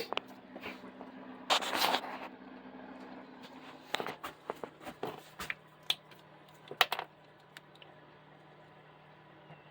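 Plastic cordless-tool housings rattling and clacking as they are handled on and off a scale: a rustling scrape about a second and a half in, then a run of sharp knocks and clicks between about four and seven seconds in.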